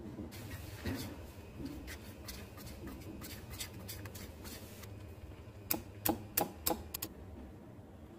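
Wire whisk beating thick gram-flour batter in a bowl, a fast scraping and clicking of the wires against the bowl that stops about five seconds in. About a second later comes a quick run of about six sharp taps, the loudest sounds.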